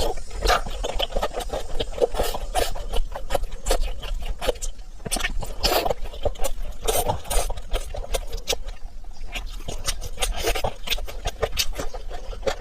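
Close-up eating sounds: chewing and lip-smacking with many short wet clicks, going on without a break.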